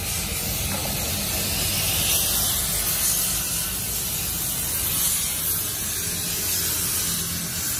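A steady hiss with a low hum beneath it, unchanging throughout.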